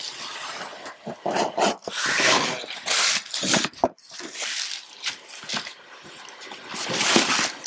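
Cardboard scraping and rustling as a shoe box is dragged and lifted out of a tight-fitting shipping box, in uneven bursts.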